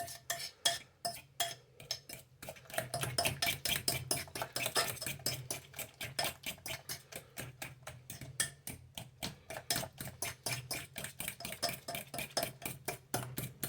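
A fork beating egg and mashed banana in a mixing bowl, clicking against the bowl in a quick, steady rhythm of about five strokes a second.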